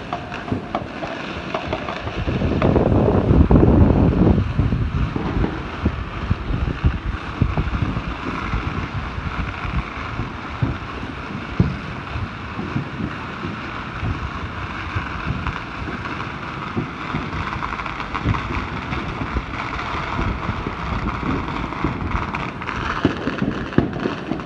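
Distant aerial fireworks going off across a city: a dense, continuous scatter of pops and bangs over a steady background rumble, louder for a few seconds starting about two seconds in.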